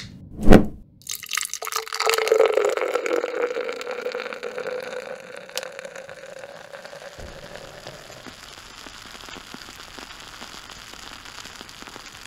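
A loud, sharp pop, then liquid pouring with a hissing fizz that slowly fades over several seconds.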